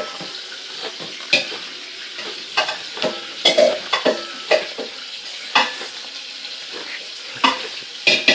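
Crinkling and rustling of a Kleenex tissue box's packaging as it is opened, with irregular sharp crackles a few times a second over a steady crackly hiss.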